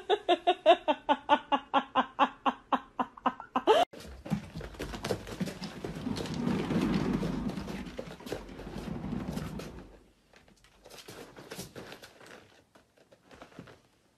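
A cat giving a rapid string of short, pitched meows, about four or five a second, for the first four seconds. After that comes a stretch of rustling and scraping noise, fading to faint scuffles near the end.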